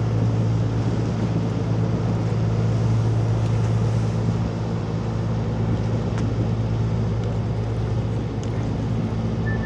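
A marine engine running steadily at constant speed: an even low hum.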